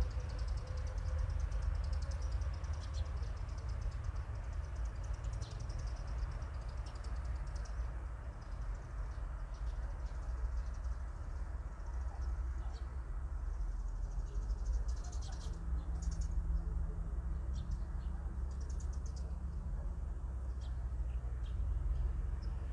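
Small birds chirping in short, quick high notes, thickest in the second half, over a steady low rumble.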